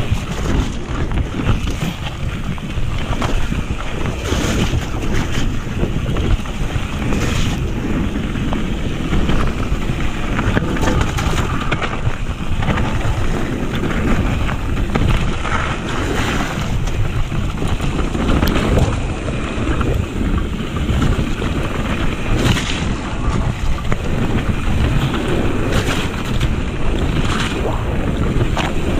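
Santa Cruz Heckler mountain bike riding fast down a rough, wet trail: a steady rush of wind on the microphone over the rumble of tyres on gravel and mud, with frequent sharp rattles and knocks from the bike over bumps.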